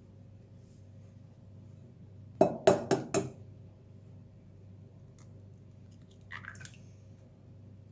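A raw egg knocked four times in quick succession against the rim of a glazed ceramic bowl to crack the shell. A few seconds later comes a softer, brief crackle as the cracked shell is pulled open over the bowl.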